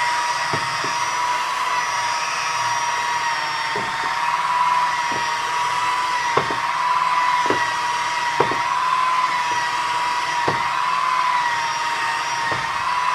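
Electric polisher with a bonnet pad running steadily on a painted wing, buffing rubbing compound, its motor whine wavering slightly in pitch as it is pressed and moved. Irregular light ticks sound through it every second or two.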